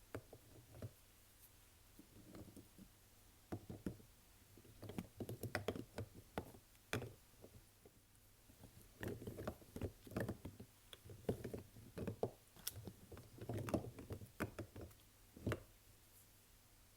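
Bars of soap and their packaging being handled and unwrapped: faint, irregular taps, clicks and knocks in quick clusters.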